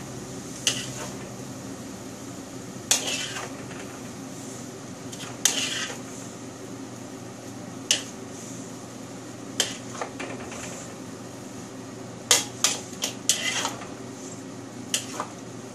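Wooden spatula and metal ladle scraping and clacking against a wok as stir-fried noodles are tossed, in irregular strokes every second or two, some in quick clusters, over a steady low hum.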